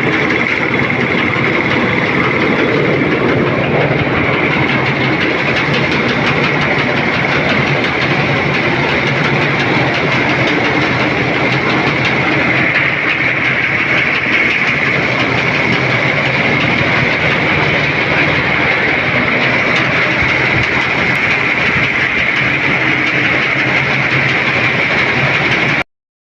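Air compressor running steadily, a loud mechanical drone with a constant high whine over a low hum. It starts abruptly and cuts off suddenly near the end.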